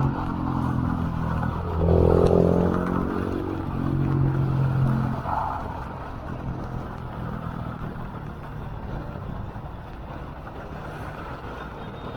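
Motor vehicle engine revving up, its note rising about two seconds in and swelling again about four seconds in, over a steady rushing noise.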